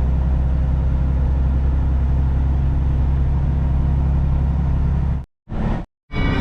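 Heavy-haul semi truck driving at a steady speed: a constant low engine drone with road noise. The sound cuts out abruptly twice near the end.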